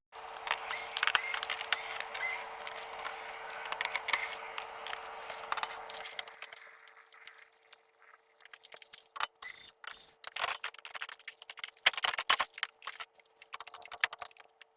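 Scraping and rattling as the car's plastic underbody protection panels and their 8 mm screws are worked loose and handled, for about six seconds, then scattered clicks and knocks. A faint steady hum runs underneath.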